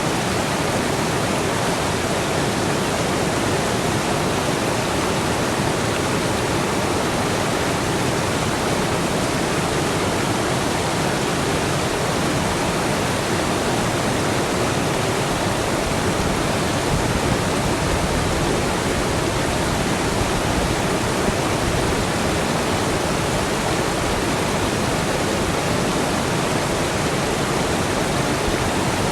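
Rushing water, a steady unbroken wash of sound that holds level throughout.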